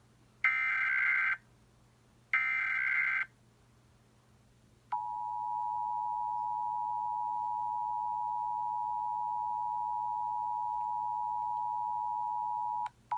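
Emergency Alert System broadcast header. Two roughly one-second bursts of SAME digital data come first, then about five seconds in the EAS two-tone attention signal (853 and 960 Hz sounding together) starts, holds steady for about eight seconds and cuts off. It signals that an emergency alert message follows, here a nationwide test.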